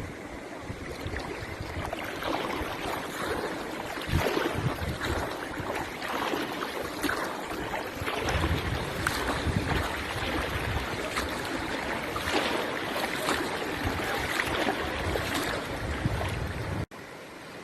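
Floodwater rushing and splashing: a steady, rough wash of noise broken by irregular splashes, with no engine tone in it.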